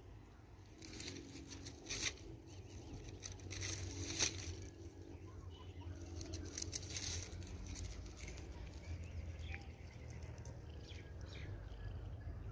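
A plastic comb stroking through a long-haired white cat's fur: several soft brushing swishes, the strongest a couple of seconds in and around the middle, over a steady low rumble.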